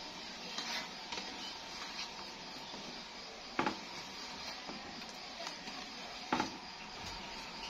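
Plastic slotted spatula stirring palm-sugar syrup in an aluminium pan to dissolve the sugar, knocking sharply against the pan a few times, loudest about three and a half and six and a half seconds in, over a steady hiss.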